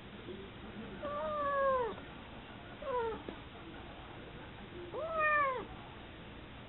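Ginger-and-white house cat meowing angrily three times in protest at having its rump touched: a long call falling in pitch, a short one, then one that rises and falls.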